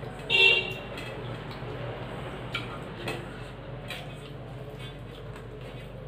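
Steel plates and bowls clinking during a meal eaten by hand: one loud ringing clink about half a second in, then a few lighter clicks, over a steady low hum.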